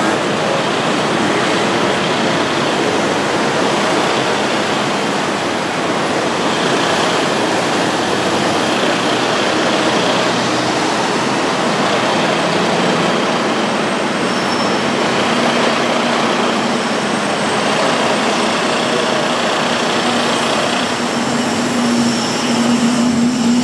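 Busy road traffic: a steady noise of vehicles passing and engines running. A double-decker bus's engine is running close by, and its low, steady hum grows louder toward the end.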